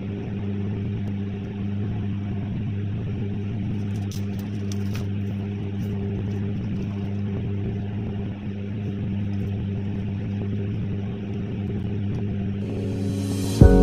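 Steady low mechanical hum, like a motor or fan running in the room, with a few faint clicks about four to five seconds in. Music cuts in right at the end.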